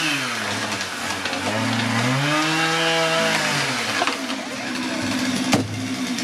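Two-stroke chainsaw cutting through a cedar trunk, its engine revving up and down twice. About five and a half seconds in there is a single sharp heavy thud as the cut trunk section hits the ground, and the saw then runs on at a lower pitch.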